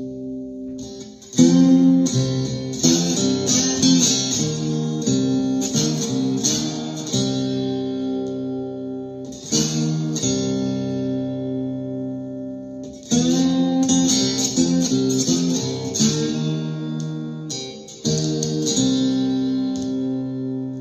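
Ovation Koa guitar in open C tuning being played: ringing chords and picked notes in phrases, with a hard new strum about a second in and again near 10, 13 and 18 seconds, each left to ring and fade.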